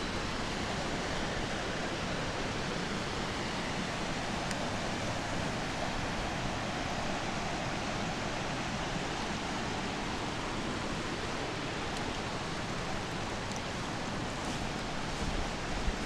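Steady rush of a shallow forest stream running over small weirs, with a few faint ticks.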